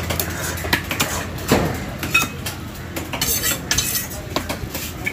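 Knife cutting and filleting a large fish on a wooden log chopping block: irregular sharp clicks and knocks of the blade against the wood, with short scraping sounds.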